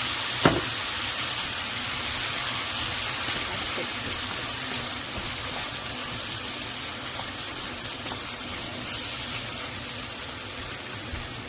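A steady hissing rush of kitchen noise, slowly fading, with one sharp click about half a second in.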